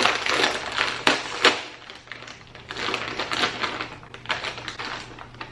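Plastic potato chip bag crinkling and crackling in uneven bursts as fingers struggle to pull it open, with two sharper snaps about a second in.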